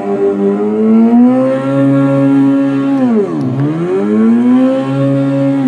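Simulated sports-bike engine sound played through the small speaker of a universal e-bike sound generator module, modulated by a throttle. The engine note revs up about a second in and holds, falls back sharply toward idle around three seconds in, then revs up and holds again.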